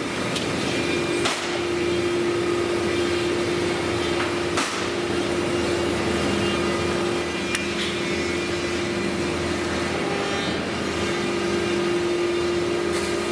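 Hydraulic power unit of a large urethane-pad forming press running with a steady hum, with a few sharp clicks and knocks as aluminium sheet parts are handled.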